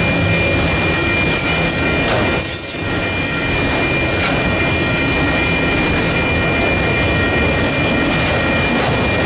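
Freight train of autorack cars rolling past a grade crossing: steady wheel-and-rail noise and car clatter, with a steady high-pitched ringing tone over it and a brief lull about two and a half seconds in.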